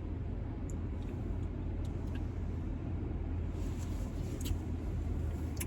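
Steady low hum of a car cabin, with a few faint clicks in the second half.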